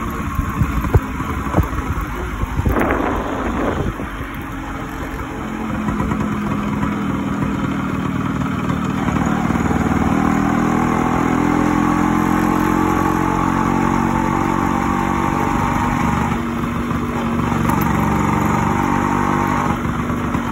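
Yamaha RX100 two-stroke single-cylinder engine under way, with irregular pops in the first few seconds. It then settles into a steady pull, its note rising gradually and changing pitch at a few gear changes.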